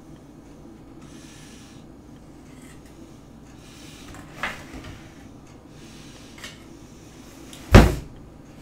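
Handling noises at a metal baking tray of set toffee: faint rubbing, a sharp knock about halfway through, and one loud thump near the end as a hand reaches into the tray.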